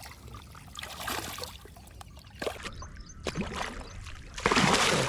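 Water splashing in short scattered bursts, with one loud splash lasting about half a second near the end.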